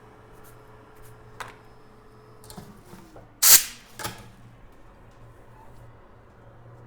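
A sharp knock about halfway through and a softer one just after it, over a low steady hum.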